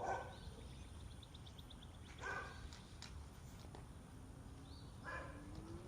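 A dog sneezing: three short, sharp bursts about two and a half seconds apart.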